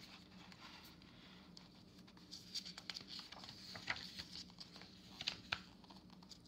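Pages of a hardcover picture book being turned and hands brushing and tapping on the paper: a scatter of soft rustles and light taps, most of them in the middle of the stretch.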